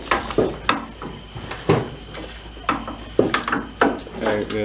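Irregular metallic clinks and knocks of truck front-suspension parts as the upper control arm's ball joint is worked by hand into the steering knuckle.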